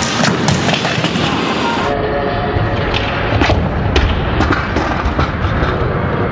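Scooter rider crashing on a plywood skatepark ramp: a run of hard knocks and clatter as the scooter and body hit the wooden bowl, followed by a low rumble with a few more knocks.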